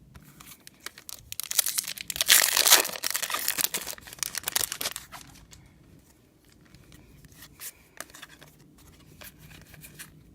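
A trading card pack's plastic wrapper being torn open and crinkled, a loud ripping crackle about a second and a half in that lasts a few seconds. After it come quieter rustles and light ticks from cards being handled.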